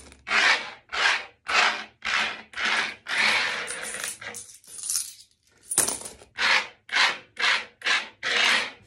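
Metal coins being slid one after another across a wooden tabletop as they are counted out of a piggy bank, a short scraping stroke about twice a second with a brief pause around the middle.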